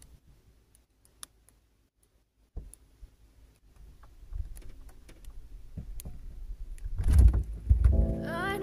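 Scattered clicks and handling noises over a faint low rumble, growing into heavy low thumps about seven seconds in; music starts right at the end.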